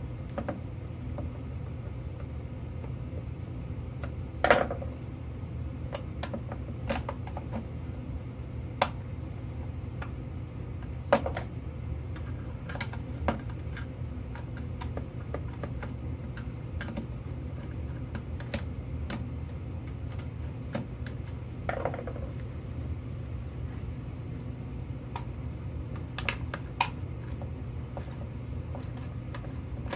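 Scattered light clicks and taps, a few louder knocks among them, over a steady low hum.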